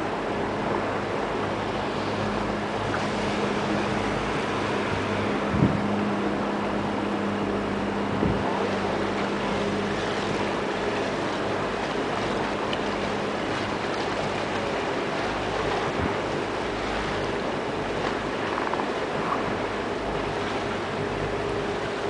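Motor cruiser under way: the engine hums steadily under a wash of water rushing past the hull and wind on the microphone. Two brief thumps about five and eight seconds in.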